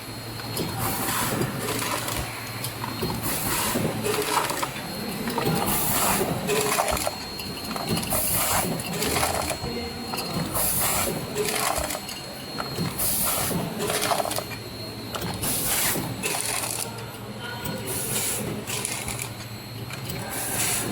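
Automatic granule sachet packing machine running: a steady low hum with a thin high whine, and short noisy strokes repeating about once a second as the machine works through its cycle.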